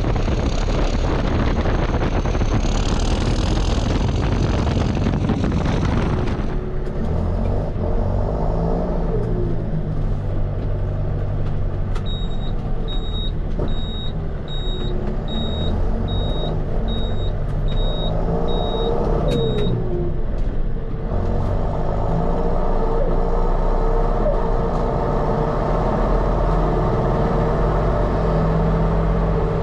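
John Deere 6230 tractor's four-cylinder turbo diesel engine running as it drives. For the first six seconds or so it is heard from the front of the tractor under a heavy rushing noise, then from inside the cab, the engine note rising and falling with throttle and gear changes. Starting about twelve seconds in, a high cab beep sounds steadily about every two-thirds of a second for some eight seconds.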